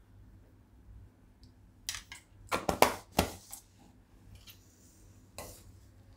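Metal ladle stirring and clinking against a stainless steel pot of dal, with a run of sharp clinks about two and a half to three and a half seconds in and a few lighter taps around it.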